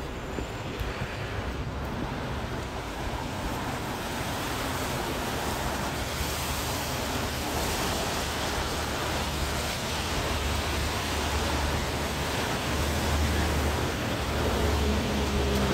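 Steady rushing hiss of a wet city street, with low wind rumble on the microphone; it grows slowly louder, and the rumble thickens from about halfway in.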